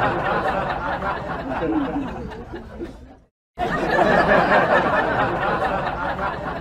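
Crowd laughter and chatter, likely a dubbed-in laugh track. It cuts out abruptly a little over three seconds in and resumes at full level a moment later.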